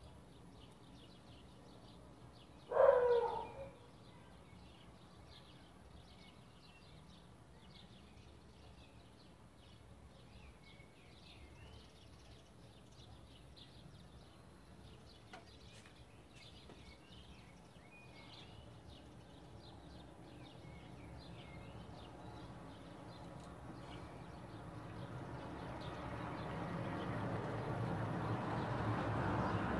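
Small birds chirping, with one brief louder call about three seconds in. Over the last ten seconds a low rumble grows steadily louder, like an approaching vehicle.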